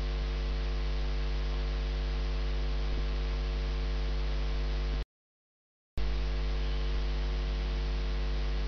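Steady low electrical mains hum with a light hiss, a buzz with many even overtones. It cuts out completely for about a second around the middle, then comes back unchanged.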